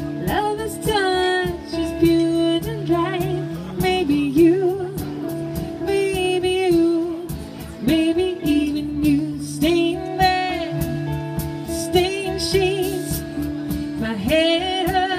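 Live band music: a woman sings a melody with vibrato over acoustic and electric guitars and a steady beat, amplified through PA speakers.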